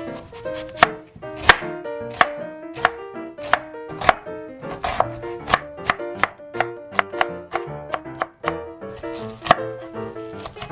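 Kitchen knife chopping through cabbage onto a cutting board: sharp, irregular strikes about one to two a second, over light background music.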